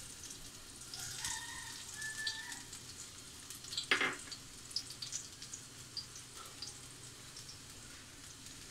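Chopped garlic sizzling gently in hot oil in a wok, a faint steady crackle, with one short louder noise about four seconds in.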